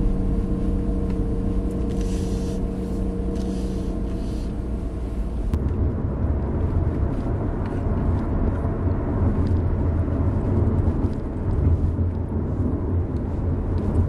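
Car cabin sound: a steady engine hum with a few held tones, then about five and a half seconds in, the deeper rumble of the car under way on the road, with light scattered clicks.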